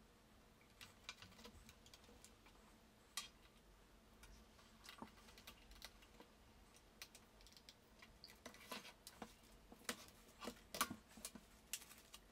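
Faint scattered clicks and light knocks of a white polycarbonate MacBook being handled and turned over on a desk, sparse at first and coming more often and louder over the last few seconds.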